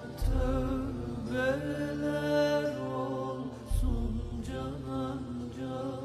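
Slow background music with a held, wavering melody. A deep bass note comes in just after the start and again a little past halfway.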